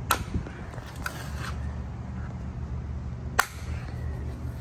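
A few sharp clicks or knocks, the loudest about three and a half seconds in, over a steady low hum.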